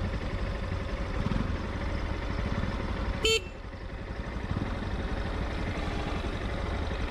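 Motorcycle running with a steady low rumble of engine and road noise, with one short horn beep a little past three seconds in.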